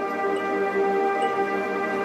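Background music: calm new-age ambient music with sustained notes and light chime-like accents.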